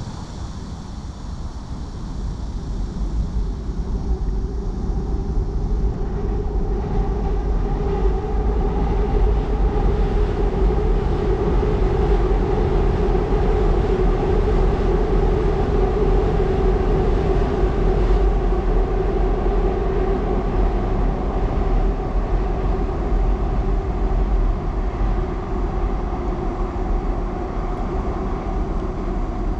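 A Seoul Subway Line 2 train crossing the railway bridge, its steady rumble building over the first few seconds, loudest midway and still going at the end.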